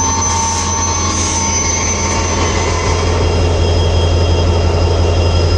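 Freight train passing close by: a heavy, steady rumble of diesel locomotives and rolling cars, with thin high wheel squeals in the first couple of seconds. It grows a little louder about halfway through.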